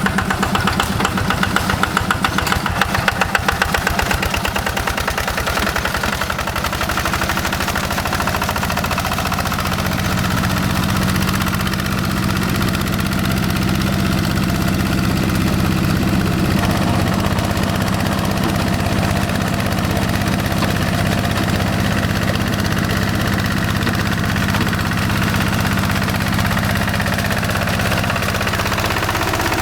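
Yanmar single-cylinder diesel engine of a Quick G1000 hand tractor running steadily. A pulsing, knocking beat in the first few seconds settles into an even note.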